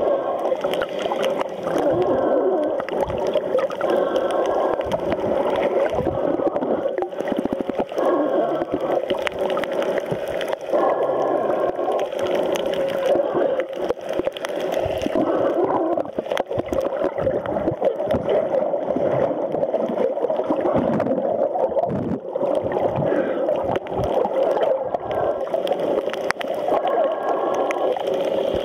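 Muffled underwater water noise picked up by a waterproof camera's sealed microphone: a steady gurgling with scattered clicks throughout.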